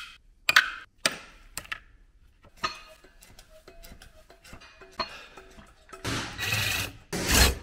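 Garage handling noises of metal tools and parts: a few sharp metal clinks and knocks, then two longer scraping, clattering noises near the end, the second one the loudest.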